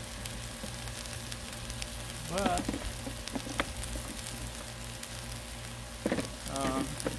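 Diced onions, bell peppers and celery sizzling steadily on a Blackstone flat-top griddle, a fine even crackle.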